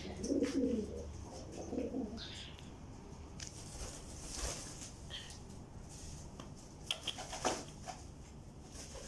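Domestic pigeons cooing, two low coos in the first two seconds, followed by a few short bursts of wing flapping as birds scuffle with each other.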